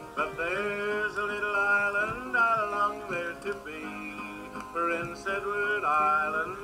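A 45 rpm RCA Victor single playing on a record changer: a song with a man singing over guitar.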